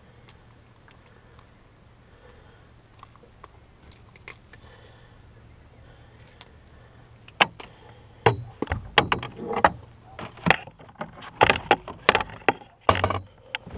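Metal clinking and rattling of pliers against a lure's hooks as they are worked out of a largemouth bass's mouth. It is faint at first, then about halfway through it becomes a quick run of sharp clatters and knocks.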